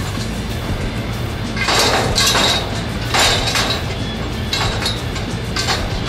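Background music: a low, steady bass under several short, bright swishes in the middle.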